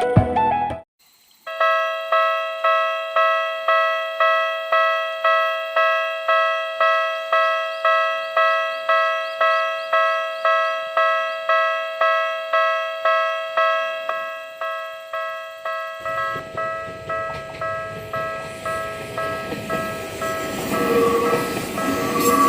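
Japanese railway level-crossing alarm of the Tokyu type: an electronic bell strikes about one and a half times a second, each ring dying away. From about 16 seconds in, the running noise of an approaching train grows beneath it and gets louder near the end.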